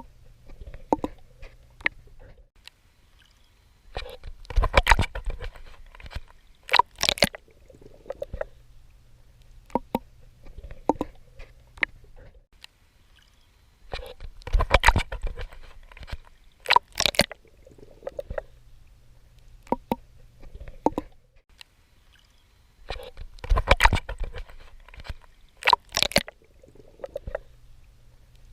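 Swimming in water: a cluster of splashing strokes comes about every nine to ten seconds. Small drips and gurgles fall between the clusters.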